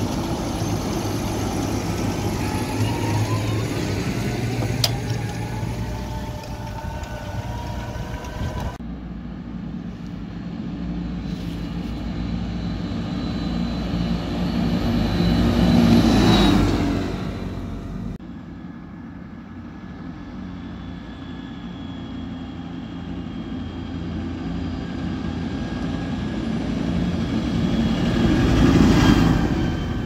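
Claas Axion tractors' six-cylinder diesel engines running as the tractors drive. The sound cuts twice from one tractor to another. A tractor passes close about halfway through, where it is loudest, and another carrying a raised reversible plough swells up as it approaches near the end.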